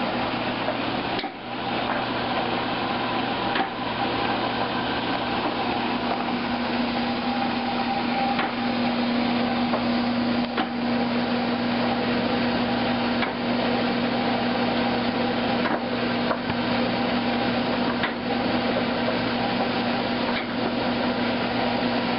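Chinese screw oil press running steadily while crushing canola seed, with a constant hum and an occasional sharp knock.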